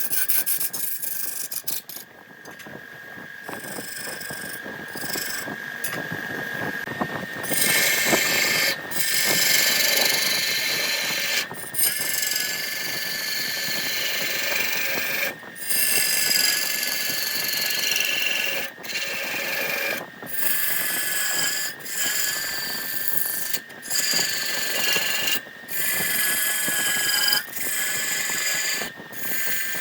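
Wood lathe running with a steady high whine while a turning tool cuts the spinning wood, a rough hissing scrape. The cutting starts about seven seconds in and comes in short stretches broken by brief gaps.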